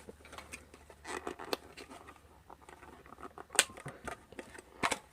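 Plastic clicking, crackling and scraping as a diecast model car is worked out of its hard plastic display case, with a few sharper snaps about three and a half seconds in and near the end.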